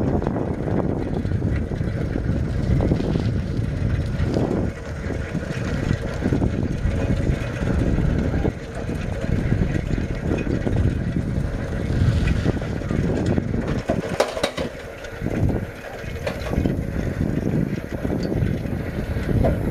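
Wind buffeting the camera microphone as it moves along at speed: a loud, uneven low rumble that rises and falls, with a few sharp handling clicks about two-thirds of the way through.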